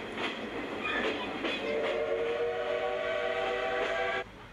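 Steam whistle of a Class C12 steam locomotive giving one long, steady blast of about two and a half seconds that cuts off suddenly, signalling departure. Before it, steam hisses with a few knocks.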